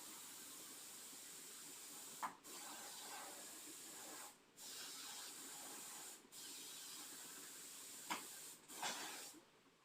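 A steady hiss that cuts out briefly about every two seconds, with a short click about two seconds in and another near the end.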